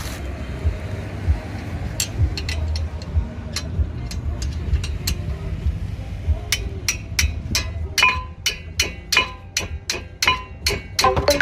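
Socket ratchet clicking as a brake caliper bracket bolt is tightened: a run of sharp metallic clicks, a few a second, starting past the middle and coming faster near the end, over background music.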